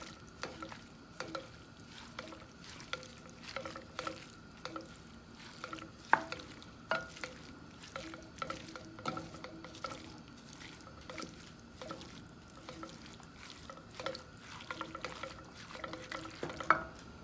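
A utensil scraping and clicking irregularly against a frying pan as browned ground beef, beef liver and diced vegetables are stirred together, with a faint sizzle of the mixture cooking.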